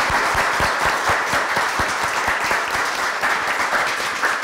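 Audience applauding, many hands clapping steadily together.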